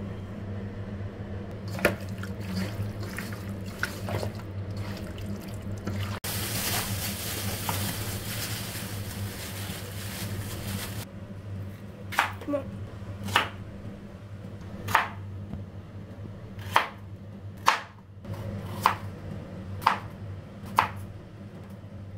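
A kitchen knife chopping through green plantains onto a plastic cutting board: about nine sharp cuts, roughly one a second, in the second half. Before them comes a steady hiss lasting about five seconds, and a low hum runs underneath throughout.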